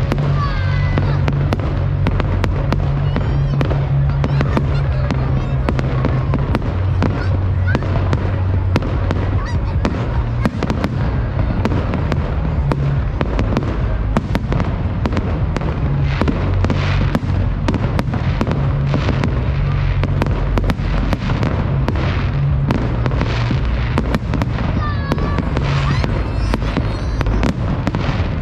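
Fireworks going off in a rapid, continuous barrage of bangs and crackles, with a few short whistles, over background music with a steady bass line.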